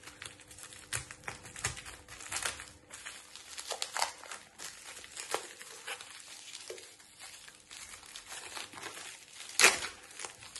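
Plastic packaging bag crinkling and rustling in irregular crackles as it is handled and opened by hand, with one louder, sharper crackle near the end.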